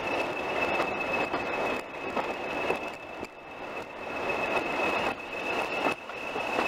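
English Electric Class 20 diesel locomotive running along the line, with a steady high whistle held at one pitch throughout and clicks from the wheels on the rails now and then.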